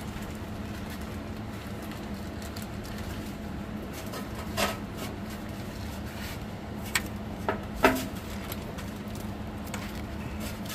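A few short clicks and squeaks as the electrical pass-through connector of a Ford 6R80 transmission is pushed and twisted into its bore in the transmission case, over a steady low hum.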